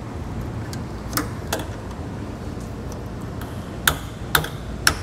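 Hand tool striking a steel mounting tab behind the front bumper to knock it back out of the way: a couple of light taps, then sharp metal-on-metal blows about two a second starting near the end.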